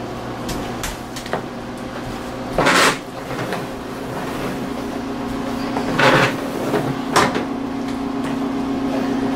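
A plastic folding step stool being pushed across a tile floor by a toddler, scraping and knocking on the tiles and against the oven front, with a louder scrape about three seconds in and another about six seconds in. A steady hum runs underneath.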